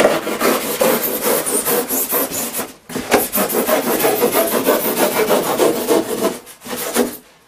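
A long knife blade sawing through a block of expanded polystyrene (styrofoam) packaging in rapid back-and-forth strokes, with a short break about three seconds in.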